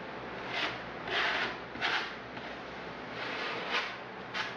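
Paintbrush scrubbing liquid waterproofing membrane onto the wall board around a shower niche: about six short, scratchy, irregular strokes.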